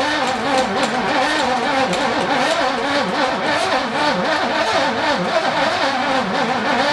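Holden VK Commodore's carburetted V8 being cranked with the throttle pumped, firing and stumbling unevenly, its pitch wavering up and down as it tries to run. It is a first start after about ten years standing, with a long-unused carburettor and an automatic choke that the owner says doesn't work.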